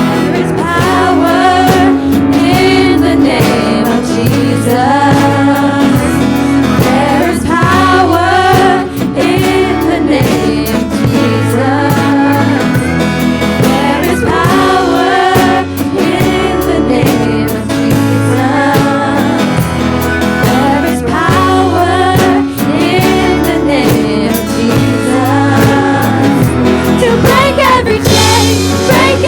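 A live worship band playing a song, with voices singing the melody over bass, guitar and drums.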